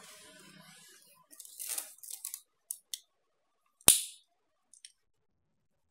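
A rotary hammer's chuck and its hard plastic case being handled, not running: scraping and rustling with a few light clicks, then one sharp snap about four seconds in.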